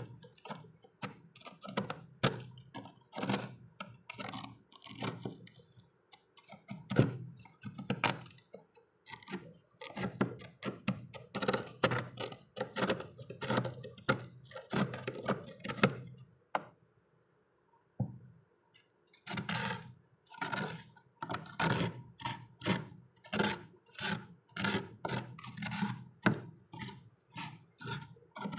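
Knife blade scraping and chipping thick frost off a freezer wall in quick repeated strokes, several a second, with a pause of a couple of seconds past the middle.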